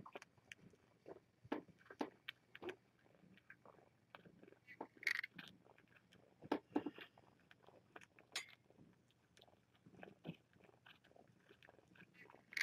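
Faint scattered soft clicks, smacks and rustles from nursing kittens and an arm shifting across a terry towel, with slightly louder rustles about five and seven seconds in.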